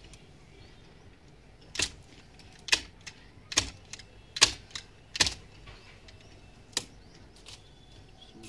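Hand shears snipping through plant stems during pruning: a series of six or seven sharp, crisp snips about a second apart, the last two fainter.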